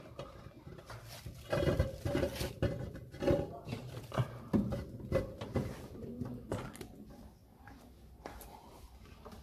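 Irregular knocks, clicks and rustling of hands handling wiring and electrical tape inside a VW Beetle's cabin, as a sound-system cable is run and taped.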